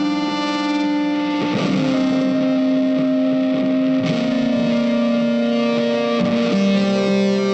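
Background music: a guitar with effects playing held chords, a new chord struck about every two and a half seconds.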